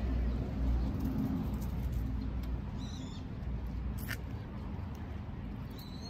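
Eurasian tree sparrow giving a few short, high chirps: one about three seconds in, a sharp one a second later, and another at the end, over a low steady rumble.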